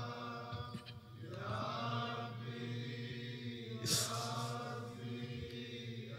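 Faint, drawn-out weeping voices, with a short hissing breath about four seconds in.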